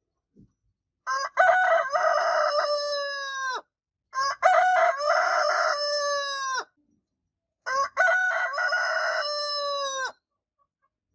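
Rooster crowing three times, each crow about two and a half seconds long: a short opening note, then a long held call that falls in pitch at the end.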